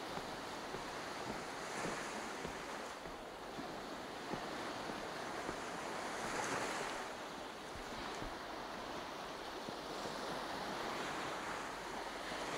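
Baltic Sea waves washing onto a stony shore, with the wash swelling and easing every few seconds, and wind buffeting the microphone. A few faint knocks sound now and then.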